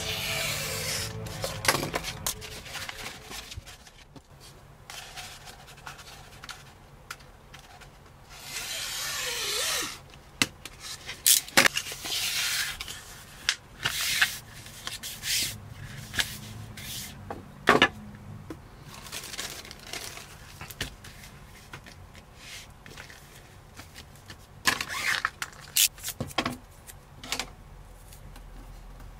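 Hands working a sheet of carbon-fibre-pattern vinyl and its paper backing on a plastic cutting mat: rubbing and scraping, a longer rustling sweep about nine seconds in, and scattered sharp ticks and taps. Near the end, plastic cling film rustles under the hands.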